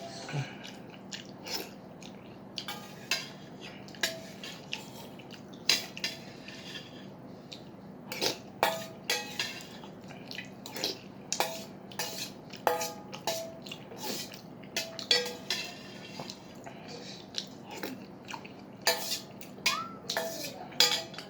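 Eating utensils clinking and scraping against a soup bowl: dozens of short, irregular clinks, many of them ringing briefly, over a faint steady hum.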